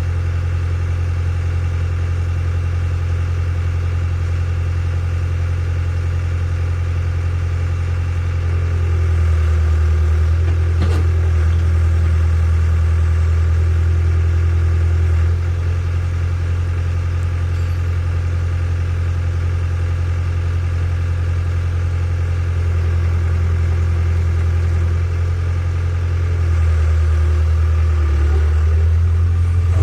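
Hitachi EX60 excavator's diesel engine running steadily. Its low hum drops lower and gets a little louder for about six seconds from around nine seconds in, and again near the end.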